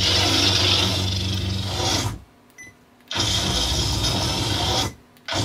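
Crossguard lightsaber's sound effects from its Proffieboard, played loud through a shop stereo over a wireless UHF audio link: a steady low hum under a crackling hiss. The sound cuts out twice, for about a second from two seconds in and again briefly near the end.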